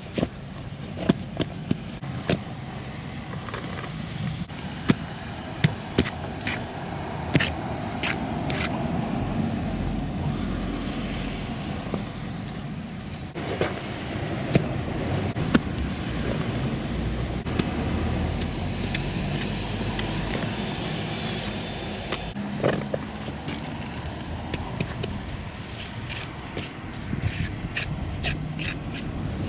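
Steel trowel scraping and tapping on sand-and-cement mortar while rebuilding the flaunching around a drain, with many sharp clicks. A low rumble runs through the middle.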